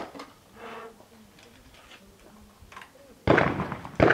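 Two shotgun shots fired in quick succession near the end, about 0.7 seconds apart, each with a short ringing tail: a double trap pair, one shot for each of the two clay targets. A sharp crack is heard right at the start.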